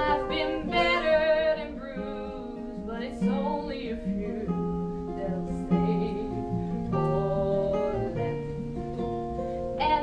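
Acoustic guitar playing a song's accompaniment, with short wordless sung phrases over it in places.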